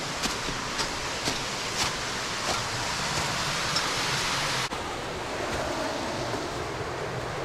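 Steady rush of water in a mountain gorge, with light sharp ticks about twice a second in the first half. About two-thirds of the way through the sound changes abruptly to a duller rush.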